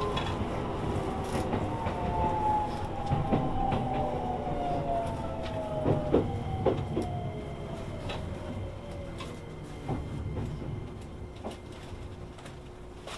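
Shin-Keisei N800 series electric train's Toyo IGBT VVVF inverter traction motors whining down in pitch over about nine seconds as the train brakes to a stop, heard from inside the car. Wheels click over rail joints under a steady running rumble that fades as the train slows.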